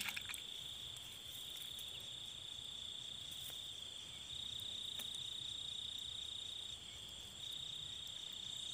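Crickets trilling in a steady, continuous high-pitched drone, with a couple of faint ticks in the middle.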